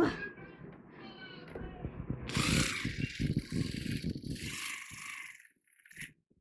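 Knife cutting through pumpkin rind in quick sawing strokes, louder about two seconds in and stopping near the five-second mark.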